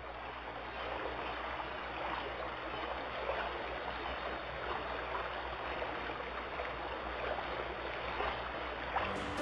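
Steady rush of running, bubbling water, even throughout, with a low hum underneath.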